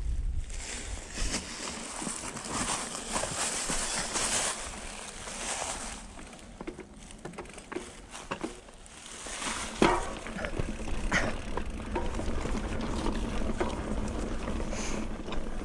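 Mountain bike rolling over a dry, stony dirt trail: tyres crunching on gravel, with scattered clicks and knocks from stones and the bike's frame and chain, and a steady rumble of wind on the microphone. A louder knock comes about ten seconds in.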